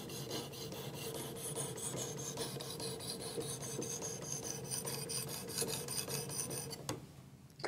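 An 800-grit sharpening plate on a Work Sharp Precision Adjust sharpener is stroked quickly and evenly back and forth along a clamped steel knife edge, making a steady scraping rasp while the bevel is refined. The strokes stop about seven seconds in.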